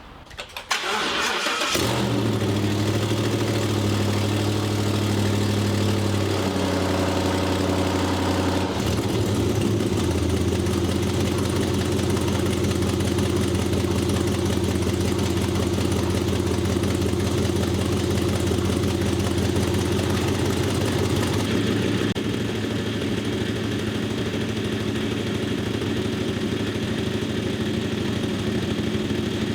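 The 2011 Ford Raptor SVT's V8 engine cranks briefly and catches about two seconds in on a cold start, then idles steadily. Its idle speed shifts a couple of times in the first several seconds before it settles.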